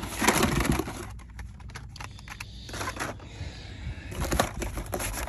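Packaging being handled: cardboard and plastic blister packs rustling and scraping in three short, irregular bursts.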